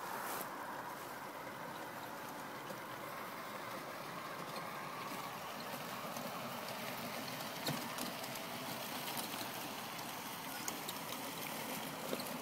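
Radio-controlled scale trucks driving in a convoy: a steady mechanical running noise with a few light clicks, one in the middle and several near the end.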